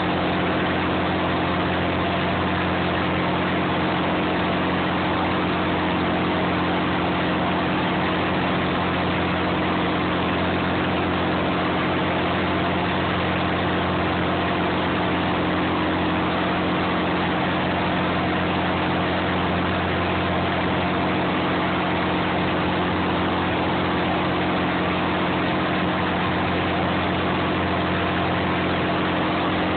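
Clam boat's engine running at a steady, unchanging drone.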